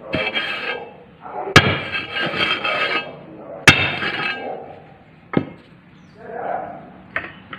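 Metal paving-block mould and round metal tamping plate being worked by hand while concrete mix is packed in. Rasping metal-on-metal scraping with a ringing edge is broken by two sharp metallic clanks about one and a half and three and a half seconds in, then a lighter knock a little later.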